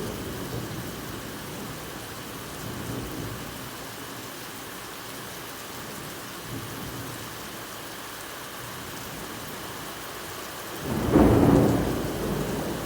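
Steady rain falling, with a loud roll of thunder near the end and fainter rumbles earlier.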